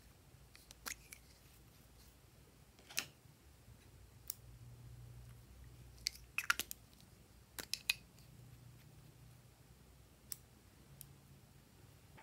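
Sparse sharp clicks and snips as small plastic tubes and a pair of scissors are handled, with a quick run of clicks a little past the middle.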